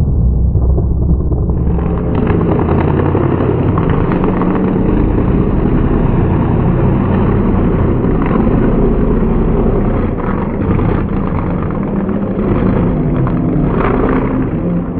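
Mega mud truck engine running hard at high throttle, loud and continuous, with the crash of a hard landing near the end as the truck comes down and breaks its front end, throwing off a wheel.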